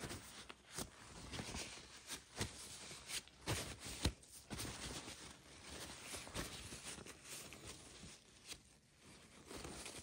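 Irregular rustling and rubbing of hands in greasy work gloves, with scattered light knocks and a sharper knock about four seconds in.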